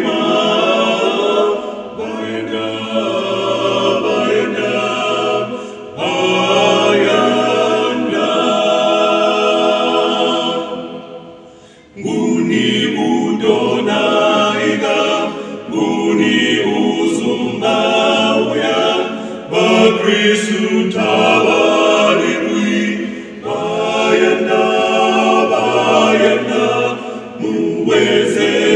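A male vocal quartet singing a cappella, four voices in harmony with no instruments. About eleven seconds in, a phrase dies away, and the singing starts again a second later.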